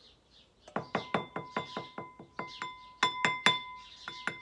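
Rapid tapping on a small glass bowl, about a dozen sharp knocks at roughly four a second, each leaving the glass ringing, as oat pulp is knocked out of the Vegan Milker's filter sieve into the bowl.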